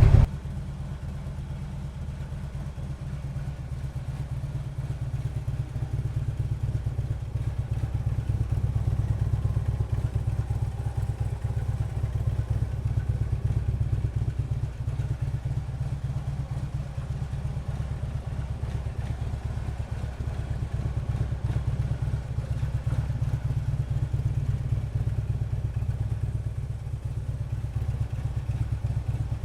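Harley-Davidson touring bike's V-twin engine idling steadily through Vance & Hines Monster Oval slip-on mufflers, a low, even pulsing exhaust note with small swells in level.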